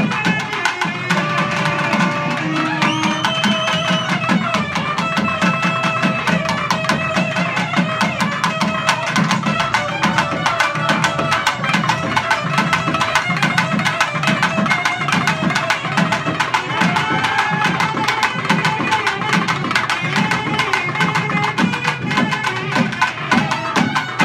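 Live Tamil festival music: a nadaswaram-type double-reed pipe plays a held, wavering melody over steady, continuous drumming.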